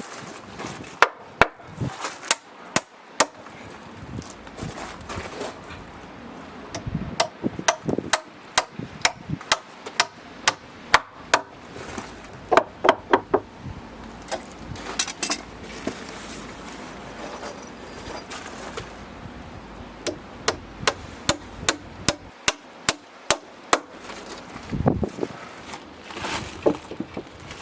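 Hammer driving nails into timber, struck in runs of several sharp blows about two a second, with short pauses between the runs.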